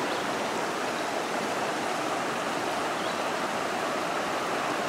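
A creek's water rushing steadily.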